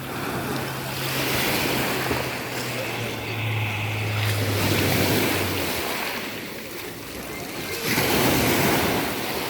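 Sea waves breaking on the shore, the surf swelling and easing about three times. A low steady hum runs underneath and stops a little over halfway through.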